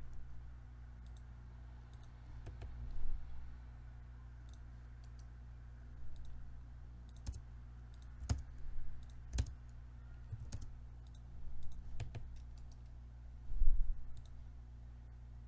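Scattered computer mouse clicks and keyboard keystrokes, irregular and a few seconds apart, over a steady low hum. A dull thump near the end is the loudest sound.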